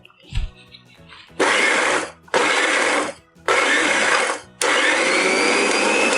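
Indian mixer grinder (mixie) grinding chopped amla pieces with a dry red chilli and spice mix: a low thump, then three short pulses of the motor, then a continuous run with a faint rising whine.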